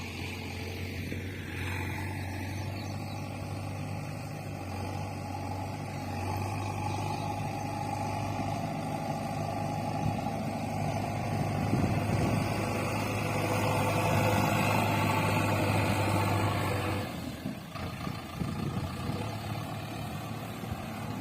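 An engine running at a steady speed, which stops suddenly about seventeen seconds in.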